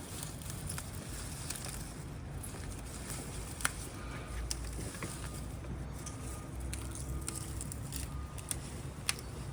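Hands digging through potting soil in a planter for potatoes: soft rustling with scattered small clicks and crackles, over a steady low rumble.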